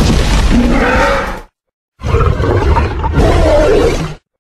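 Indominus rex creature roars, a sound-effect dinosaur vocalisation: one roar already underway ends abruptly about a second and a half in, and after a short silent gap a second roar of about two seconds follows and cuts off.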